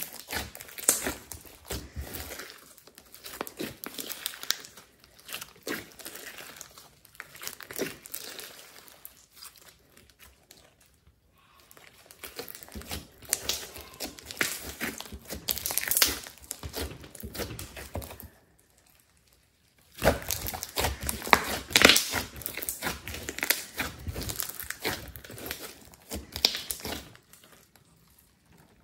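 Hands squeezing, stretching and pulling apart a big lump of thick, glittery orange slime: sticky crackling and popping in irregular clusters as it is pressed and torn, with a short pause about two-thirds of the way through.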